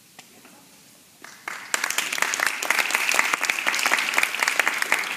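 A small audience clapping. It starts about a second and a half in, after a quiet pause, as quick, dense hand claps that keep going.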